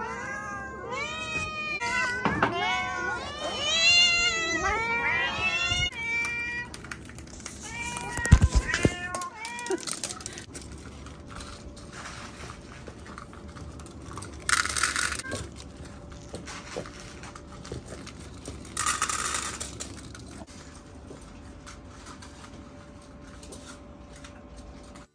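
Several domestic cats meowing over one another, a quick run of rising-and-falling calls in the first seven seconds or so: hungry cats demanding their breakfast. A loud thump comes about eight seconds in, then a few more meows, and later two short hissing rustles while the cats eat.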